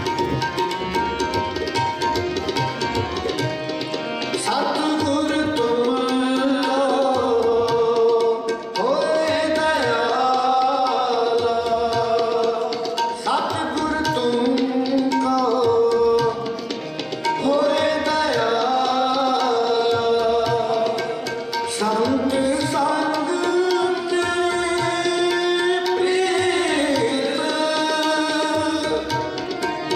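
Sikh kirtan: men singing long, held devotional phrases to harmonium accompaniment, with a steady tabla rhythm underneath.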